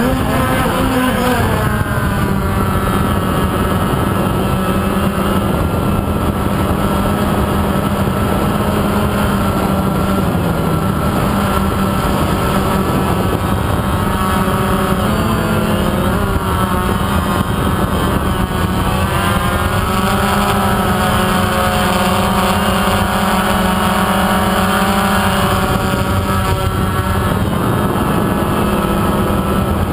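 DJI Phantom quadcopter's motors and propellers running loudly, heard from the camera on the drone itself: a steady buzz with several whining tones that drift up and down in pitch as the motors change speed.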